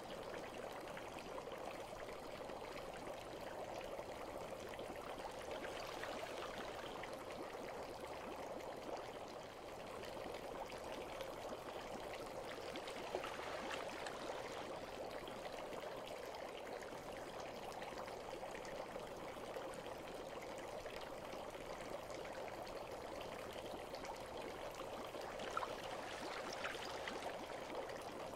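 Water running and trickling steadily, as in a bath ambience. A few brief, sharper splashes or drips come about halfway through and again near the end.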